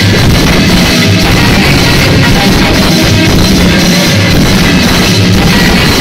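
Loud music with drums played over a sonidero sound system.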